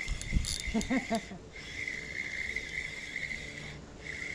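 Insects droning in a steady high shrill that cuts out briefly twice, with a short spoken sound about a second in and a few low thumps at the very start.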